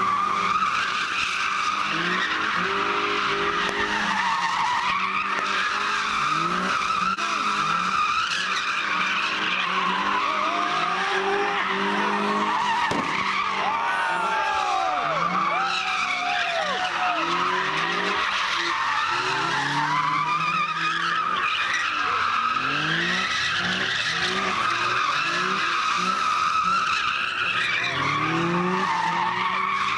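Cars doing donuts: tyres squealing without a break while the engines rev, their pitch rising and falling over and over.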